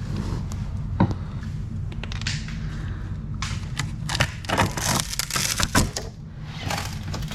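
Loose, delaminated fiberglass being pried and broken off a boat's deck joint: a sharp crack about a second in, then a run of crunching and snapping from about three and a half to six seconds, over a steady low hum.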